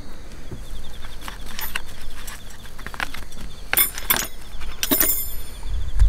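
Metal grilling skewers clinking and rattling against one another as they are picked up and handled: a run of short, sharp metallic clicks, the strongest ones ringing briefly, about four and five seconds in.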